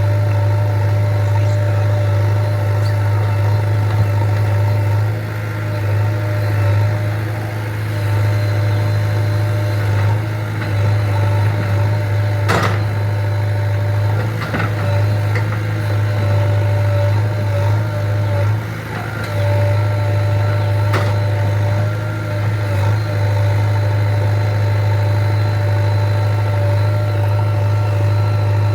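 Diesel engine of a JCB 3DX backhoe loader (49 HP Eco Xpert) running steadily, with a constant low hum, a few brief dips in level, and three sharp knocks.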